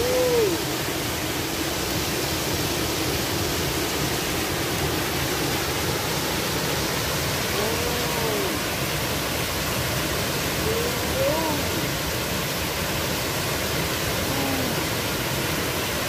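Small waterfall pouring over rocks into a pool, a steady, even rush of falling and churning water.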